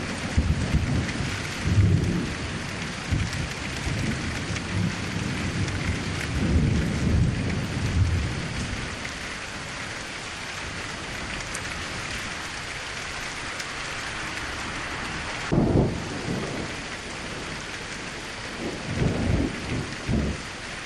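Steady rain hissing, with low rolling thunder rumbles through the first half, a sharper, louder burst of thunder about 15 seconds in, and more rumbling near the end.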